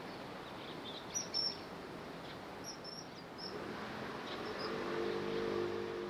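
Short, sharp, high-pitched calls of a common kingfisher, a quick cluster just over a second in and a few more around three seconds in, over steady background noise. A low steady hum comes in over the last second and a half.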